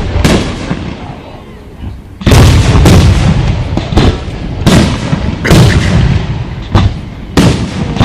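Aerial fireworks shells bursting: one boom just after the start, then from about two seconds in a rapid run of booms every half second to a second, each trailing off in a rumbling echo.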